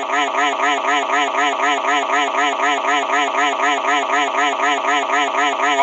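Synthetic text-to-speech voice from the VoiceForge app, repeating one short syllable over and over, about six times a second, as a steady rapid warble. It cuts off abruptly near the end.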